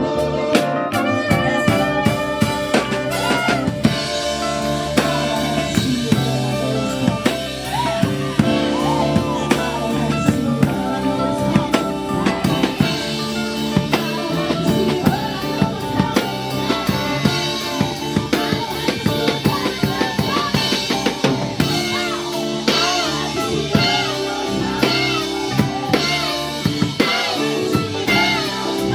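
Gospel worship music from a live band, a drum kit with snare, rimshots and bass drum playing a steady beat under sustained instrumental chords.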